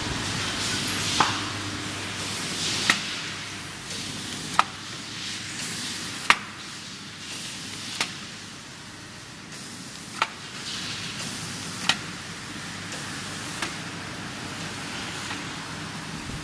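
Automatic paper feeder running, giving a sharp clack about every 1.7 seconds in a regular cycle over a steady machine hiss.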